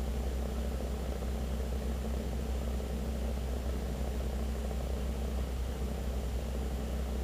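Car cabin noise: a steady low rumble of engine and road with no distinct events.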